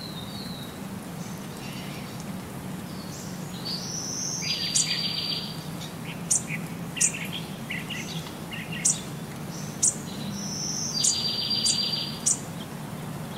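High-pitched bird-like chirps and sweeps, two buzzy trills and a run of short sharp clicks, with the same sequence coming round a second time, over a steady low hum.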